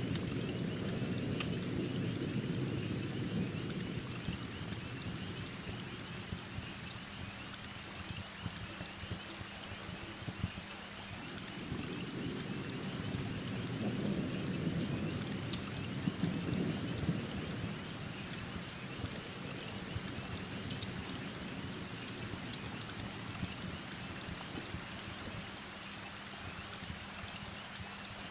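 Steady heavy rain with low rolls of thunder, one through the first few seconds and a second swelling up near the middle, with sparse small ticks over the rain.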